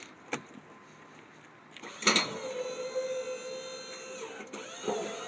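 Boss snow plow's electric-hydraulic pump motor kicking in with a clunk about two seconds in and running with a steady whine as the plow blade is worked up or down from the controller; its pitch shifts near the end.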